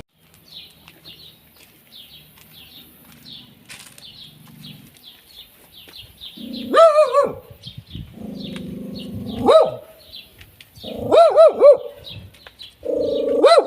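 An animal calling: for the first few seconds, faint, rapid high-pitched chirps at about three or four a second. Then, from about halfway, loud short yelping calls that rise and fall in pitch, mixed with longer low, drawn-out growl-like sounds.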